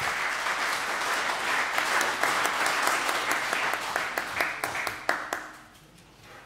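Audience applauding, thinning to a few separate claps and fading out about five and a half seconds in.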